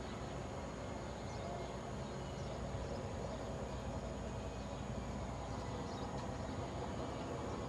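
Outdoor garden ambience: a steady low hum of distant traffic, with a few faint, brief high bird chirps.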